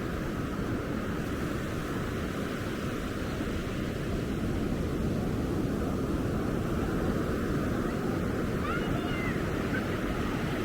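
Ocean surf washing onto the beach in a steady rush of waves. A few faint, high, gliding calls come near the end.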